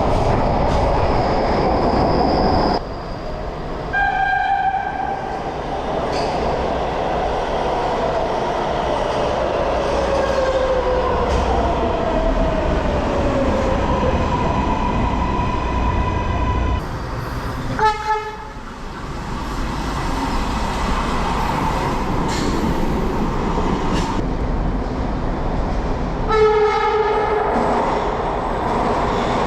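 MARTA heavy-rail cars sounding their horns: three short blasts over the steady noise of trains running on the track, the first two from Franco-Belge/Alstom CQ310 cars and the last, near the end, from a Hitachi CQ311. Between the blasts a motor whine slides down in pitch as a train slows.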